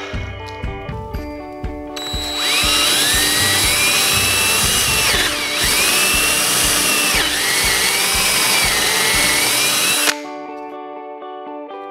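Cordless drill boring a hole into a wood block. About two seconds in the motor whine and cutting noise start loudly. The pitch dips twice as the bit loads up, and the sound stops abruptly about eight seconds later. Background music with a steady beat plays throughout.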